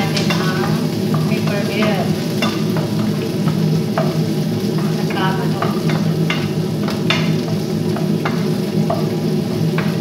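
Chopped garlic sizzling in hot oil in a pot while a spatula stirs it, scraping and clicking against the pan: sautéing the garlic as the base of a macaroni sauce. A steady low hum runs underneath.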